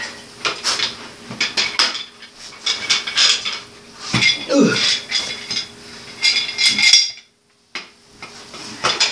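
Metal tools and bicycle wheel parts clinking, knocking and scraping while a tire is worked on by hand, with a brief silent gap about seven seconds in.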